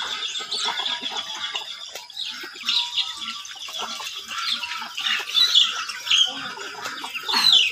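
A flock of chickens with young chicks peeping: many short, high calls in quick succession, opening with a fast trill and getting louder toward the end.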